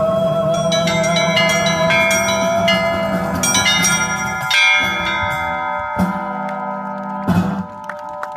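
Russian church bells being rung: a quick patter of small bell strikes over the long ring of larger bells, with three heavier strokes in the second half.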